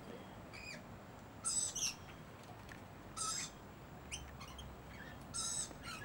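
Young noisy miners going "cheep cheep": short, high cheeps, one every second or so.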